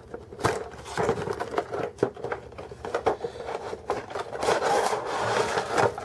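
A cardboard figure box being worked open by hand: a run of scrapes, taps and rubbing, with a longer rubbing stretch near the end.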